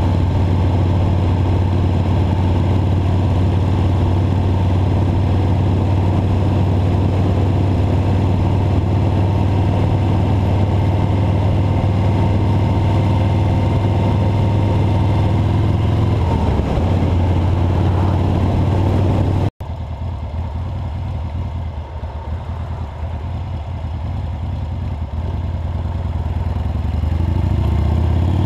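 Motorcycle engine running at a steady cruise. It cuts off abruptly about two-thirds of the way through, comes back quieter, and climbs in pitch near the end as the bike speeds up.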